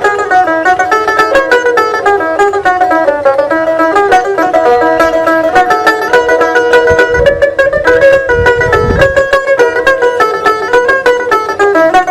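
Dotara, the Bengali long-necked plucked lute, playing a fast melody of quickly picked notes.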